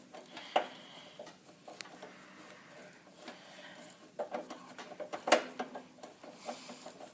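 Scattered metallic clinks and knocks of tools and metal parts being handled, a few at a time, with the sharpest knock about five seconds in.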